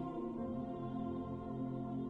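Slow, soft instrumental music of long held chords, which change to a new chord about half a second in.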